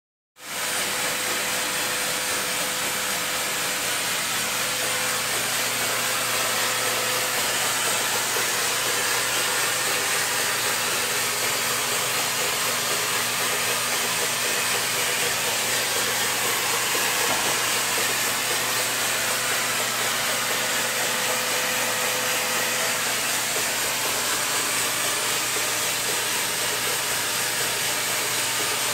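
A blower pushing air through a hose into a handmade wooden air engine as it runs: a steady rush of air and motor noise with a faint low hum, starting about half a second in.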